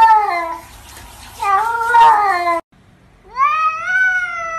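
Domestic cats meowing: one long meow trails off just after the start, and a second drawn-out meow follows. After a sudden break, a tabby cat gives one long meow that rises in pitch and holds.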